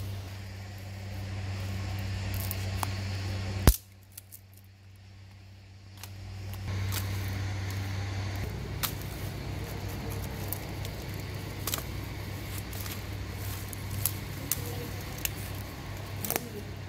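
Dry branches and twigs being gathered and dropped onto a pile: scattered sharp cracks, snaps and rustles over a low steady hum, with one loud crack a little under four seconds in.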